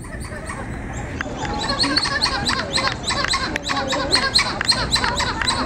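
Gray titi monkeys calling: a rapid series of short chirping calls, about five a second, getting louder about a second and a half in.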